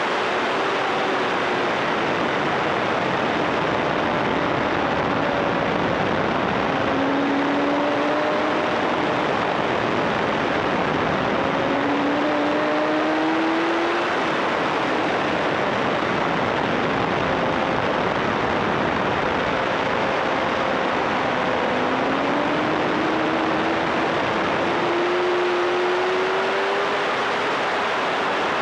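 Loud wind rush over an onboard camera on a motorcycle at track speed, with the engine faintly heard beneath it, rising in pitch three times as the bike accelerates.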